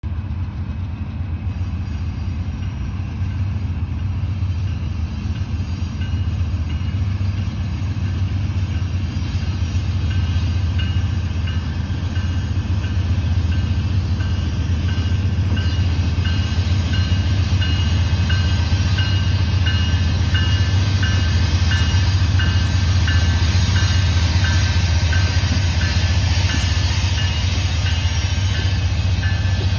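Three Canadian Pacific diesel locomotives heading a freight train, their engines a deep, steady rumble that grows louder as they approach and pass, working hard under power. Over it a level-crossing bell strikes at an even, unhurried rate, clearer from about ten seconds in; the bell is malfunctioning.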